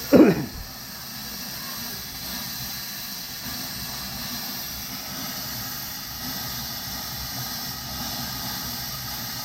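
Kitchen hot water tap hissing steadily as trapped air is purged from the line of a newly installed water heater, the sign that the tank has not yet filled completely. A short loud sound falling in pitch at the very start.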